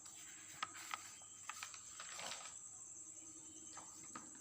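Quiet room tone with a faint steady high-pitched whine and a few soft clicks in the first couple of seconds.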